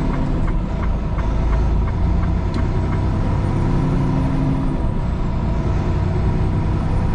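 Steady low drone of a Freightliner Cascadia semi-truck heard from inside the cab, with light ticks about three a second during the first few seconds.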